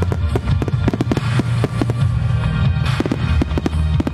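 Aerial firework shells bursting in a rapid volley, many sharp bangs a second in quick succession, over music with a steady bass beat.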